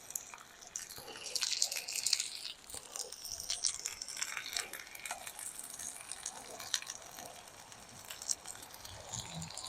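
Faint crinkling, rustling and small clicks and knocks of hands handling food and containers.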